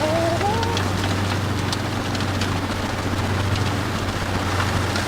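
Land Rover Discovery TD5's five-cylinder turbodiesel engine running steadily, heard from inside the cab while driving off-road, with scattered knocks and rattles. A short tone rises in pitch in the first second.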